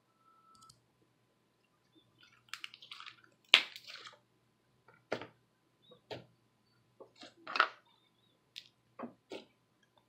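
Thick, slightly over-activated homemade glue-and-borax slime squelching and popping as it is kneaded and stretched by hand: a scatter of short wet clicks and squishes, the loudest about three and a half seconds in.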